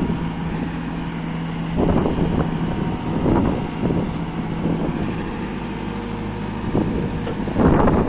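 Caterpillar 444F2 backhoe loader's diesel engine running, swelling louder several times, the strongest surge near the end. Wind on the microphone.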